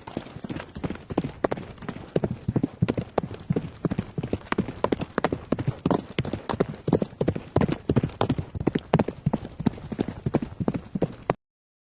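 A horse galloping: rapid, uneven hoofbeats drumming without a break, which cut off abruptly near the end.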